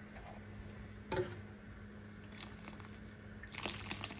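Pot of soup simmering on the stove, with a few light clicks and knocks of a stirring spoon against the pot, thickest near the end, over a faint steady hum.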